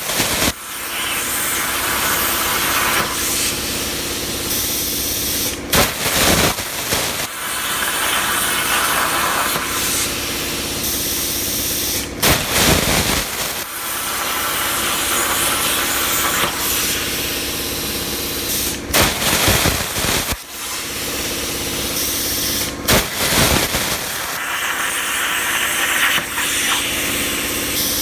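Razorweld 45 plasma cutter torch on a CNC plasma table cutting 16-gauge sheet at about 32 amps: a loud, steady hiss of air and arc. Several times it cuts out sharply and restarts with a short loud burst.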